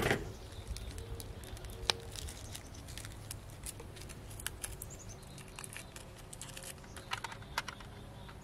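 Scattered light clicks and taps of hands handling a diecast model car and its styrofoam packaging, with birds chirping faintly in the background.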